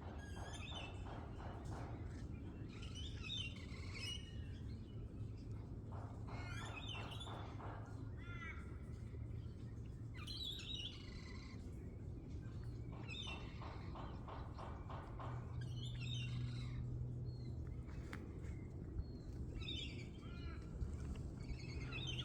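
Wild birds calling: a short phrase of quick notes with higher squeaky notes over it, repeated every three to four seconds, over a steady low hum.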